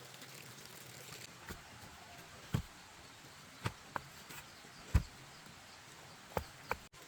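Seven short knocks and thumps at uneven intervals over a faint steady hiss, the two loudest about two and a half and five seconds in.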